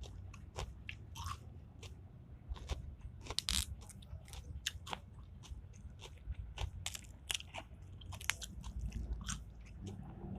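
Close-up eating: a person biting and chewing food, with many irregular short crunching clicks.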